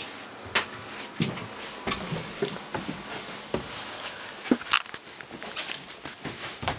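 Irregular light knocks, clicks and rustles of someone moving about inside a small sailboat, from the cabin up into the canvas-enclosed cockpit.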